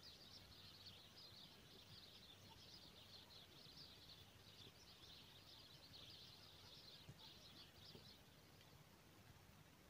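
Near silence, with faint, rapid high twittering of small birds that stops about eight and a half seconds in.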